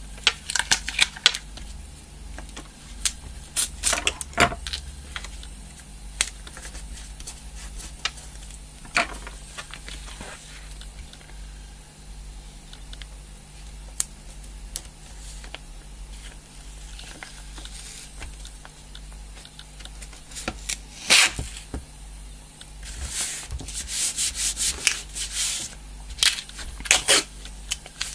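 Hands rubbing and pressing brown packing tape down onto cardboard, with scattered rustles and clicks. Brief bursts of crackling tape pulled off its roll, loudest a little after twenty seconds in.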